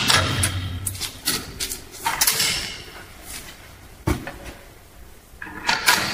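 Scattered knocks and clunks of metal hardware being handled, about half a dozen spread through, with a low hum during the first second.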